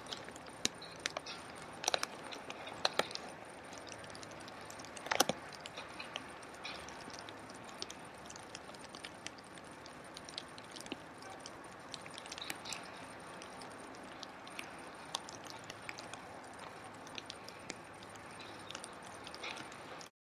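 Steady hiss with scattered crackles and clicks at irregular intervals, the loudest about five seconds in.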